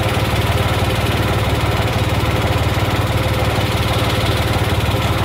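Tractor diesel engine running steadily with an even, fast pulse, turning a farm machine's belt pulley through a driveshaft.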